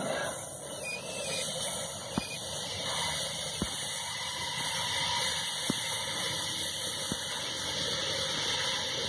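Loaded iron-ore freight wagons rolling along the rails: a steady hiss of wheels on steel, with about four sharp clicks spread through it.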